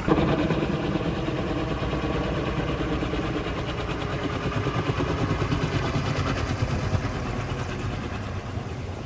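An engine running steadily with a fast low pulse.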